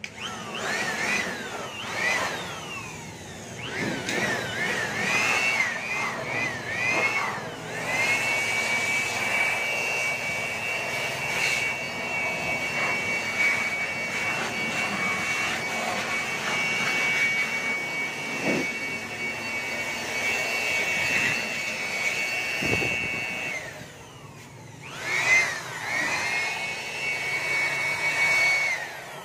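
Handheld blower revving up and down in several short bursts, then running steadily with a high whine as it blows dust out of speaker cabinets. It winds down near the end and starts up again a second later.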